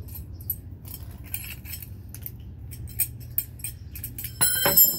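Metal hand tools and small parts clicking and clinking against each other, with a loud ringing metallic clatter near the end.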